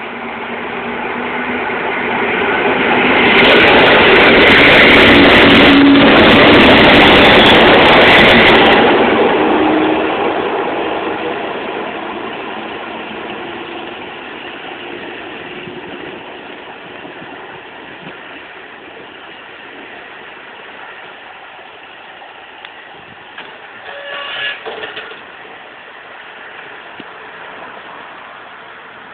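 SKM electric multiple unit passing close along the platform track: the running noise builds to a loud rush over the first few seconds, holds for about five seconds, then fades slowly as the train moves away.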